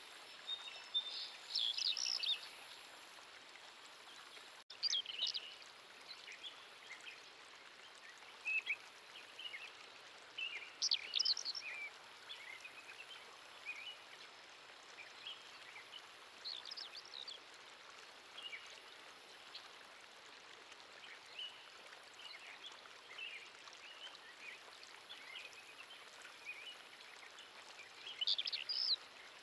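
Small birds chirping in short, scattered calls over a steady hiss, with louder flurries of high chirps about two seconds in and near the end.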